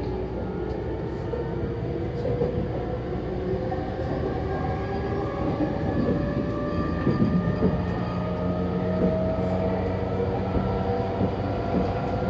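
Inside a JR East E231-series electric train's motor car, the Mitsubishi IGBT inverter and traction motors whine as the train accelerates, several tones rising slowly in pitch over the rumble of wheels on rail. Under power this car sounds like an ordinary E231; its abnormal gear noise shows only when braking.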